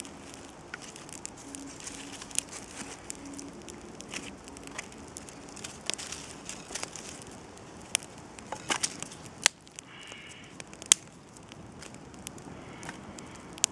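Small campfire of twigs and branches burning, crackling with scattered sharp pops, the loudest two a little past nine and eleven seconds in.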